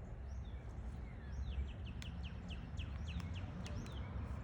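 A bird calling: a quick series of short falling chirps, about four or five a second, through the middle stretch, over a low rumble.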